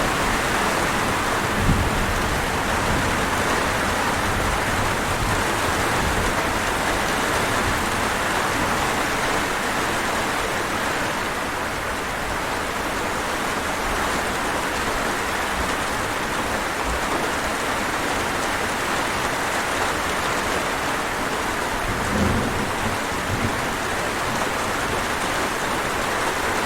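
Steady heavy rain falling, with a low rumble of thunder about two seconds in and another late on.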